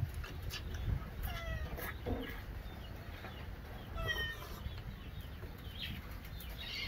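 Chickens clucking, short falling calls about a second and a half in and again about four seconds in, over a low steady rumble. Light clicks of chopsticks against porcelain bowls come and go.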